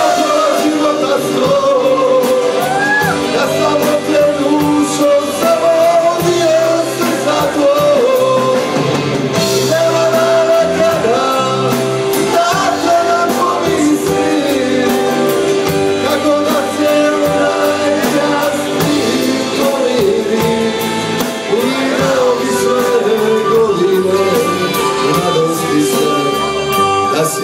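Live band music amplified through a PA, with a man singing the lead into a handheld microphone over drums and keyboard/guitar accompaniment; the playing and singing run on without a break.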